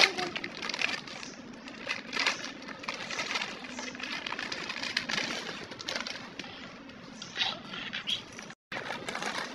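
Foil chip packet crinkling and rustling in short, irregular bursts as it is torn open and handled.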